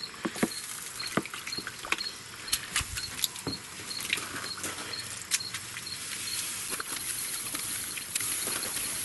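Chicken thighs sizzling and crackling with many sharp pops on the grate of a charcoal-fired Pit Barrel Cooker as vinegar mop sauce is dabbed on and drips into the hot pit. The hiss grows a little louder about six seconds in.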